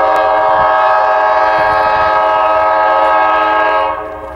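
Locomotive air horn sounding one long, loud blast, a chord of several notes held steady, which cuts off near the end.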